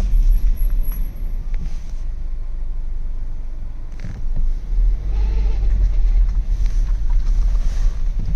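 Low rumble from a VW Golf Mk7.5's seven-speed DQ200 dry-clutch DSG drivetrain on the move. It eases for a couple of seconds near the middle. This is the first-gear noise the owner reports, which second gear does not make.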